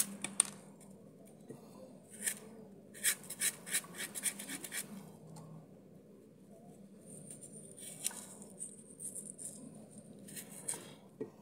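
A spoon scraping the seeds and spongy pith out of a halved bitter melon: short runs of quick scratchy strokes with pauses between them, busiest at the start, around two to three seconds in and near the end.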